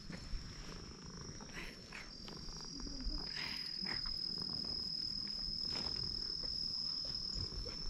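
A steady, high-pitched insect drone, one thin unbroken tone, with soft brushing and rustling sounds from a hand stroking a cat's fur.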